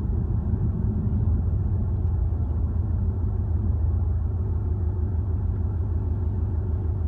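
Car running at low speed as heard from inside the cabin: a steady low rumble of engine and tyres.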